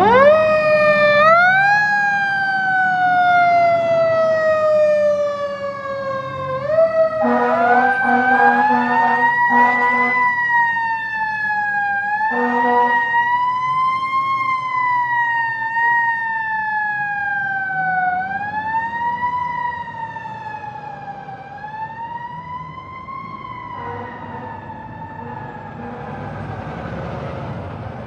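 Aerial ladder fire truck's siren winding up and slowly falling in pitch, over and over, with air horn blasts about seven seconds in and again about twelve seconds in. The siren grows fainter over the last several seconds as the truck moves away.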